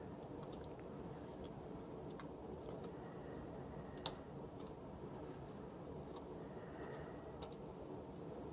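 Scattered light clicks and taps of small keyboard parts being handled during assembly, with one sharper click about four seconds in, over a faint steady hum.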